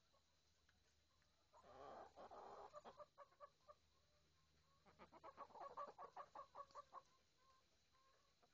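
Domestic hens clucking: a brief burst about two seconds in, then a run of quick, repeated clucks from about five to seven seconds in.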